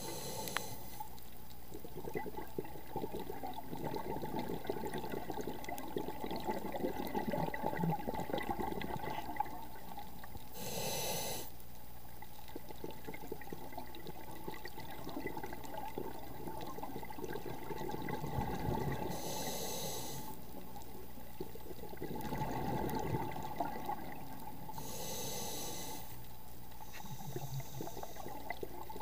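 A scuba diver's regulator breathing heard underwater: stretches of bubbling exhaled breath, broken four times by a short hiss of inhalation.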